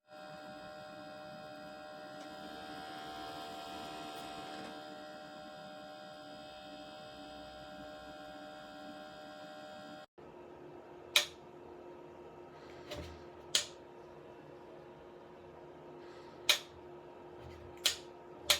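Steady electrical hum of a small appliance, made of several steady tones. After a cut about ten seconds in, a lower single-tone hum continues with five sharp clicks.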